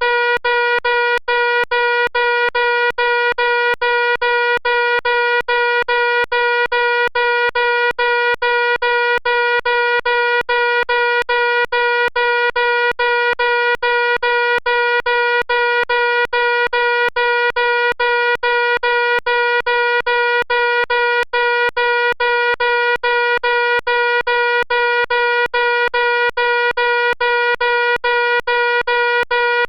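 Fire alarm sounding a loud, harsh, unchanging tone, broken by brief dips several times a second.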